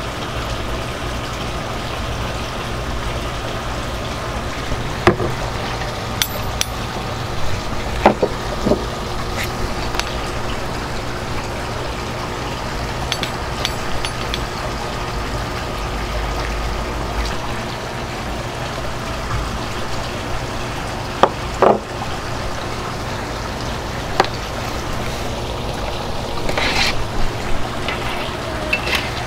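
Barbecue sauce being brushed onto smoked whole chickens on a metal sheet pan: a steady background hum with scattered light clicks and knocks from the pan and the metal hanging hooks.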